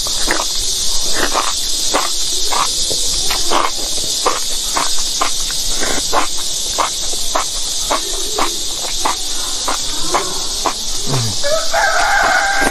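Wet chewing and slurping of a big mouthful of chili-oil-coated enoki mushrooms, about two smacks a second, over a steady high insect drone. A rooster crows near the end.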